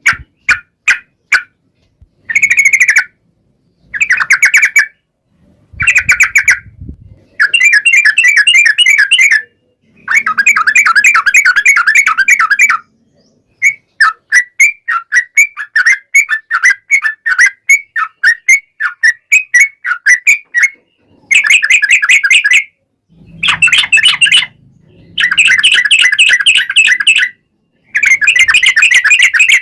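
Yellow-vented bulbul (trucukan) singing long runs of fast, bubbly chattering notes, in bursts of one to three seconds with short pauses between. A stretch of separate quick notes comes about midway.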